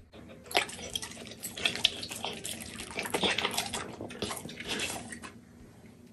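Wet smacking, licking and chewing as a pit bull eats raw meat from a person's palm: a dense run of moist clicks and slurps that starts about half a second in and stops about five seconds in.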